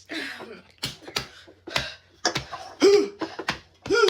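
A person chugging a can of soda: a series of sharp gulping clicks, with two short throaty vocal sounds near the end.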